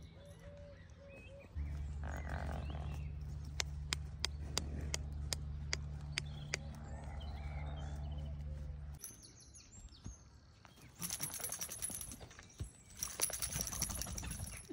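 Horse's hooves striking and scuffing a loose chip arena surface as it canters and bucks, with scattered sharp hoof strikes and two spells of louder scuffing noise near the end. A steady low hum sits under the first half.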